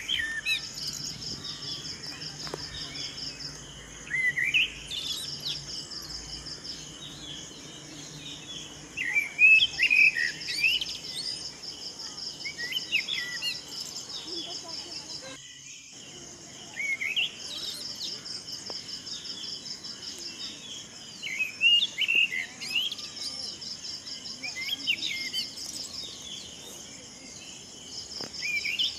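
Birds singing over a chorus of trilling insects: short phrases of rising chirps come every few seconds above a steady, finely pulsing insect buzz. The sound cuts out briefly about halfway through.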